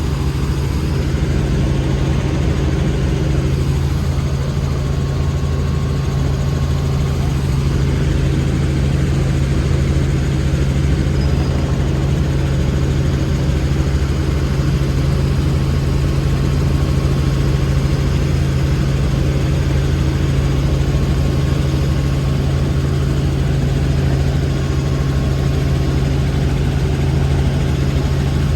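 Helicopter engine and rotor noise: a loud, steady low drone with a strong hum that does not change.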